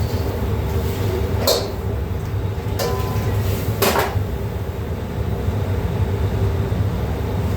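Steady low rumble, like a vehicle running, with a steady hum over it. Three sharp knocks or clatters come about a second and a half, three and four seconds in.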